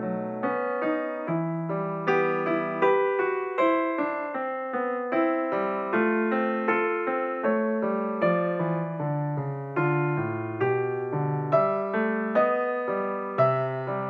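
Solo piano music: a minuet played as a steady run of single notes over low bass notes.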